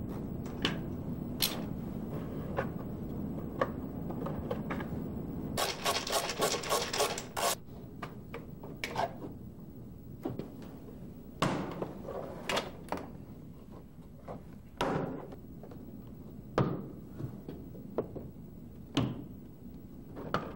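Clicks and knocks of a screwdriver and plastic trim fasteners being worked on a Mercedes W210 rear door inner panel, with a quick run of about a dozen clicks around six seconds in.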